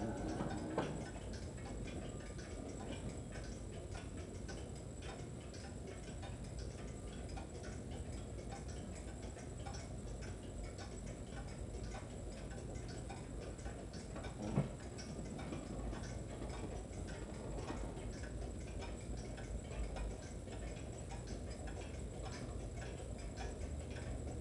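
Pendulum wall clock ticking steadily, with a single louder knock about halfway through.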